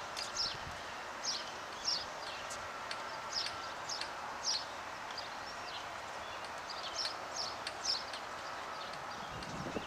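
Small birds chirping: short high chirps repeating every half second to a second over a steady outdoor background hum.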